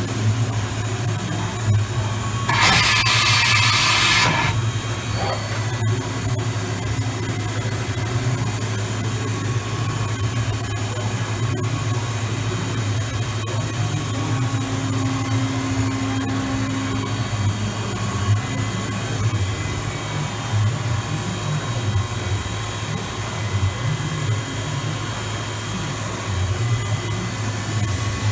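OKK VM-5 II CNC vertical machining center running under power with a steady low hum. About three seconds in comes a hiss lasting about two seconds, and near the middle a steady tone for about three seconds.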